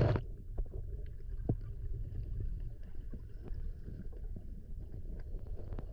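Underwater ambience picked up by a camera in its housing: a steady, muffled low rumble of water with faint scattered clicks and crackles.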